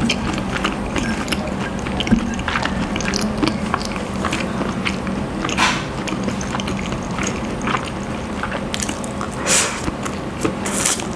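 Close-up eating sounds of stir-fried instant noodles: wet chewing and lip smacking with many small clicks, and a few short slurps as strands of noodles are drawn into the mouth, the longest about nine and a half seconds in.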